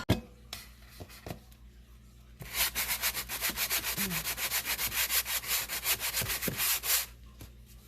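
Hand sanding dried spackle smooth on beadboard paneling: rapid, even back-and-forth scraping strokes that start about two and a half seconds in and stop about seven seconds in. A sharp click right at the start.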